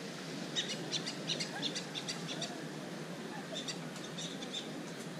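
Birds chirping in quick runs of short, high calls: one cluster from about half a second to two and a half seconds in, another near four seconds, over a steady low background wash.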